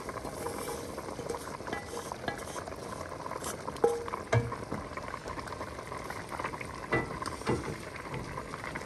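Wooden spatula scraping sautéed vegetables out of a frying pan into a pot of soup, then a wooden spoon stirring the pot, with scattered knocks of wood against pan and pot over a steady bubbling hiss.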